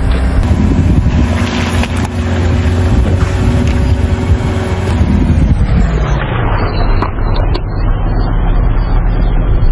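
A car engine running low and steady while the tyre rolls over and crushes a watermelon, its pitch sagging about halfway through. A few sharp cracks come about seven seconds in.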